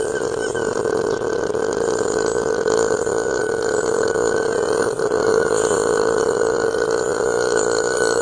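A woman's long, unbroken belch, held at a steady pitch. It is the middle of a 46-second burp forced up after gulping root beer.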